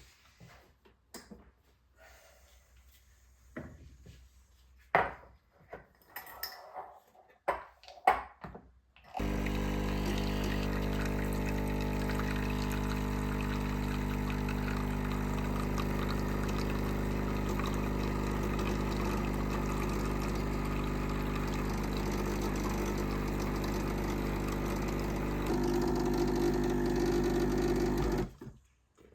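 A few scattered clicks and knocks, then a steady machine hum at a fixed pitch starts about nine seconds in, shifts slightly in tone a few seconds before the end, and stops shortly before the end.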